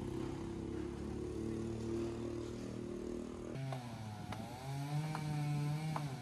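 An engine runs steadily, then about three and a half seconds in a chainsaw takes over, its pitch dipping and rising, with a few sharp cracks.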